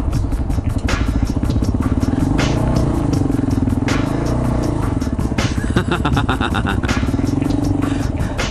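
Dual-sport motorcycle engine running at low speed as the bike slows to a crawl, its pitch wavering up and down with the throttle, with tyres rolling over dirt.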